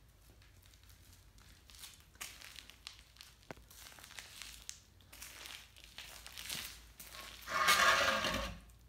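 Aluminium radiator being handled and shifted on a concrete floor: scattered light scuffs and rustles, then a louder scrape with a faint metallic ring, lasting about a second near the end.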